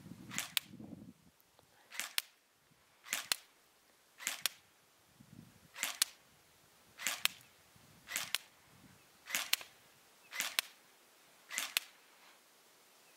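GSG G14 electric blowback airsoft rifle firing single shots in semi-auto only, about ten shots at a steady pace of roughly one a second. Each shot is heard as a quick double click.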